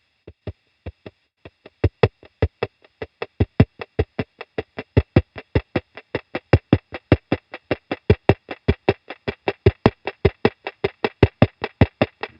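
Moog DFAM analog drum synthesizer playing a sequenced pattern of short pitched percussive hits, about five a second, with the accents and pitch shifting from step to step. The hits fade in over the first couple of seconds and are fed through a delay pedal.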